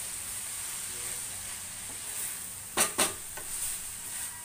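Chopped fenugreek leaves and onions sizzling in a stainless steel pan as a wooden spoon stirs them through. About three seconds in come two quick, sharp knocks close together, followed by a few lighter ones.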